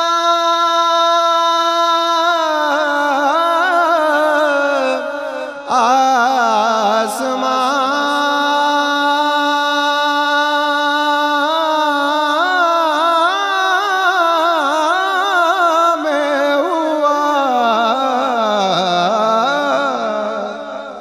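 A man's voice singing an Urdu naat, drawing out long notes with no clear words. It holds one note at first, then moves through wavering, ornamented runs, with a brief breath about five and a half seconds in and a sinking phrase near the end.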